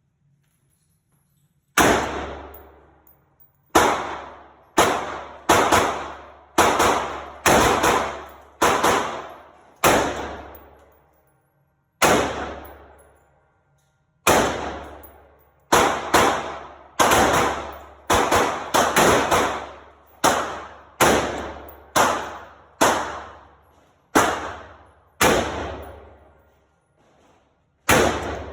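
AR-15 rifle in 5.56 firing semi-automatic single shots, about two dozen at an uneven pace of roughly one a second, each sharp report followed by a decaying echo.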